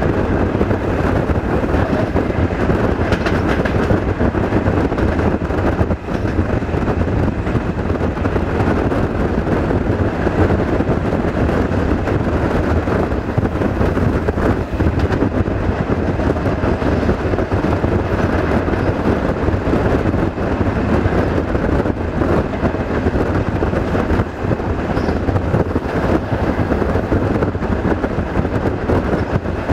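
VT614 diesel multiple unit running along the line: a steady engine drone with the rumble of wheels on the rails.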